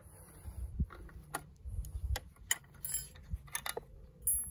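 Light, irregular metal clicks and clinks of the shaft nut and top-mount hardware being worked off a MacPherson strut whose coil spring is held in spring compressors. A brighter ringing metal clink comes near the end.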